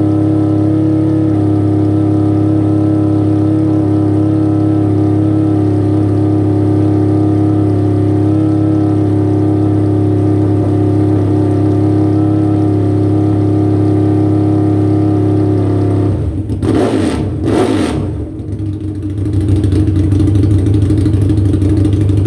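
Rebuilt Harley-Davidson V-Rod Destroyer's liquid-cooled V-twin drag-racing engine, loud, running at a steady raised speed of around 4,000 RPM to bring it up to temperature on its second heat cycle. About sixteen seconds in, the revs drop and waver for a couple of seconds, then it settles at a lower, steady idle.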